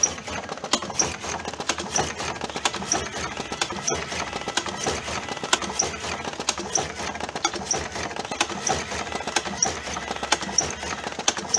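TobaTech AG-01 electric cigarette tube filling machine running, clicking through its filling cycle about once every three-quarters of a second as it packs tobacco into cigarette tubes.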